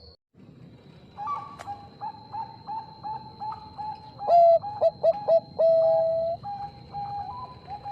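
Zebra dove (Bangkok perkutut) cooing: a fast, rhythmic series of short notes, about three a second, with a louder run of lower, longer coos about four seconds in.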